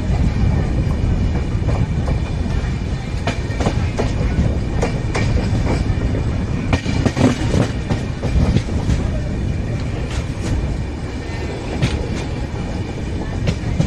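An express passenger train rolling along the track: a steady low rumble with irregular sharp clacks of the wheels running over rail joints.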